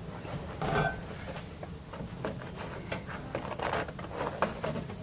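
Scattered light clicks and taps at an uneven pace, the small handling noises of hand work on parts and wiring.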